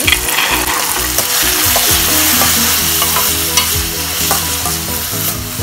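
Vegetables sizzling on high heat in a steel pan as a slotted metal spatula stirs and tosses them, with scattered clicks of the spatula against the pan. Soy sauce and tomato sauce have just gone in.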